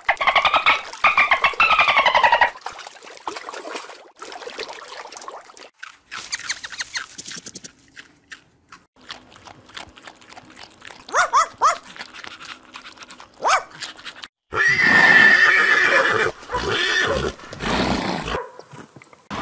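A series of animal calls. A horse whinnies near the start, wavering up and down for about two seconds. Shorter calls follow, and a loud, rougher call stretch comes near the end.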